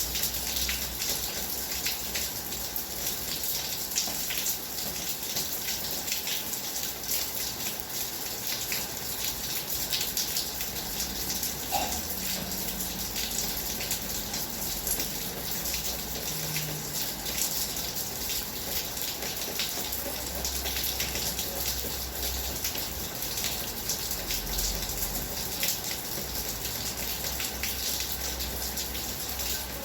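Heavy rain falling steadily: a dense, even hiss of water with many sharp individual drop hits.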